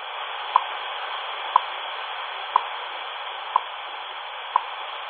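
Shortwave time-signal station WWV on 15 MHz, heard through a C.Crane CC Skywave 2 portable radio's speaker: a short, sharp tick once a second over steady static hiss, the station's seconds pulses.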